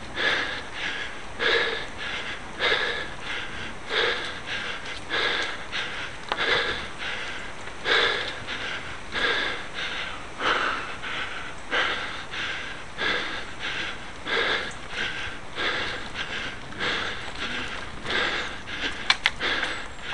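A cyclist's heavy, rhythmic breathing while climbing a steep cobbled hill, one loud breath about every second and a bit, the sign of hard effort on the gradient. A few sharp clicks come near the end.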